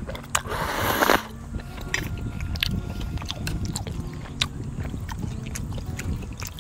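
A person eating cold chicken noodle soup (chogye-guksu) close to the microphone: a loud slurp of noodles just under a second long near the start, then chewing with many small wet clicks.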